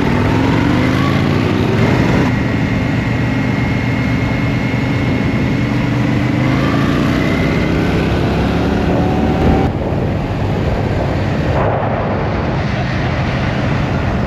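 Motorcycle engines pulling hard under acceleration, rising in pitch, with a gear change about two seconds in and the throttle closing about ten seconds in. Wind rushes on the microphone throughout.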